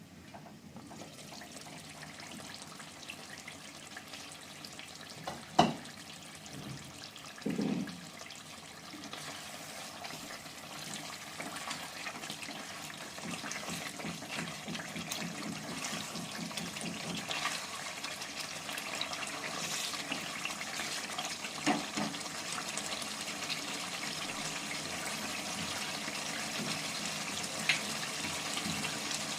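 A steady watery hiss that slowly grows louder, with four short, sharp knocks spread through it.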